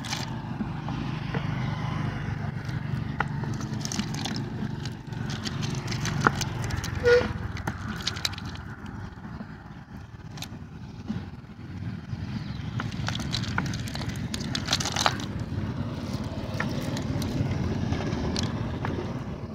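Scattered clicks, crackles and scrapes of hands picking the catch out of a mesh fishing net, over a steady low rumble.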